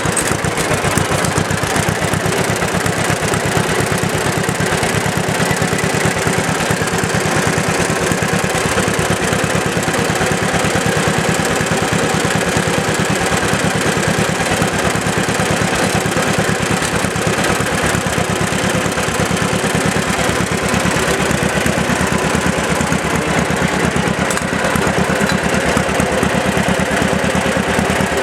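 1946 John Deere LI tractor engine running steadily, an even rapid beat of firing pulses with no change in speed.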